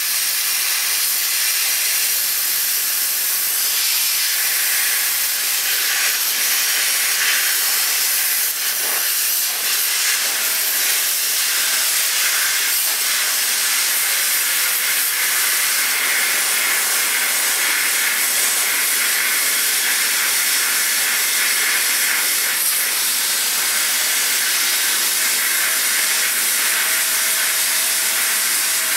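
Harbor Freight plasma cutter torch cutting through a steel 6-inch I-beam: a steady, loud hiss of the air-driven arc that does not let up.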